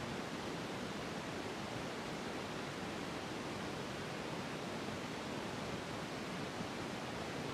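Steady, even hiss of room tone, with no other sound standing out.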